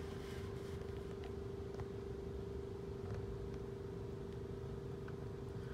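Steady machine hum: one constant mid-pitched tone over a low rumble.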